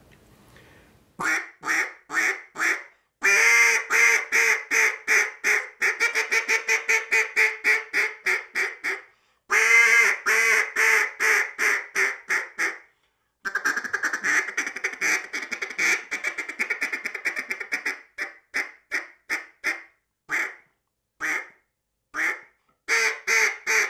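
RNT Lil Richie duck call, a small timber call built for lots of back pressure and a soft sound, blown in series of quacks. A few single quacks come first, then long runs of rapid quacks, then slower spaced quacks near the end.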